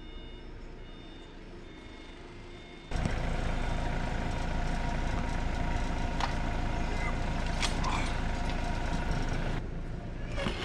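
Repeated electronic beeping at about one-second intervals, like a vehicle's reversing alarm. Just under three seconds in, a loud, steady, engine-like rumble starts suddenly, with a few sharp clicks.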